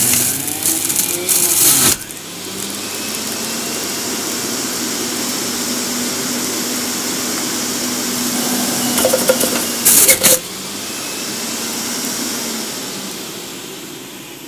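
Centrifugal juicer's electric motor running and shredding carrot pieces. There is loud grinding in the first two seconds and again about nine to ten seconds in, with a steady motor hum between, and it gets quieter toward the end.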